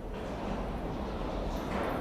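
New York City subway train approaching through the tunnel, a steady low rumble that swells slightly near the end.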